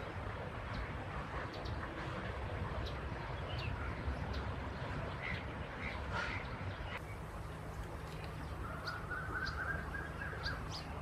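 Birds calling over a steady low background hum: short high chirps scattered throughout, and about nine seconds in, one drawn-out buzzy call lasting over a second.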